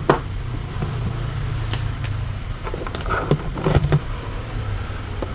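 A steady low background hum, likely traffic, with a few light clicks and knocks scattered through it, the sounds of small parts or tools being handled.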